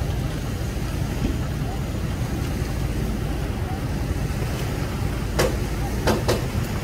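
Steady low engine rumble of idling vehicles or boats, with three short sharp sounds near the end.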